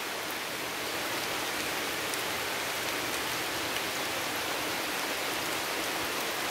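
Steady rain falling on the leaves of the tree overhead and the ground around, an even hiss with a few faint drop ticks.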